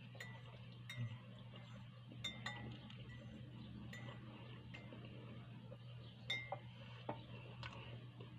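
A spoon clinking against a drinking glass while a drink is stirred: light, ringing clinks at uneven intervals, about a dozen in all, over a faint steady hum.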